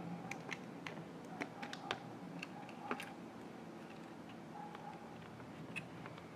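Faint, irregular small clicks and taps of fingers handling thin wires and pushing small plastic connectors onto a circuit board inside an opened radio transmitter, over a faint steady hum.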